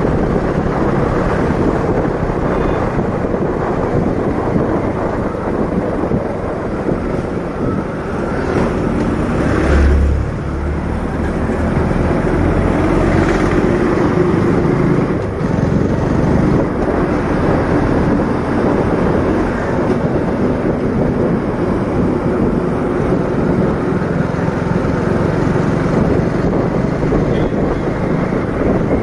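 Motorcycle engine running steadily while riding, with wind rushing over the microphone. A brief low thump about ten seconds in.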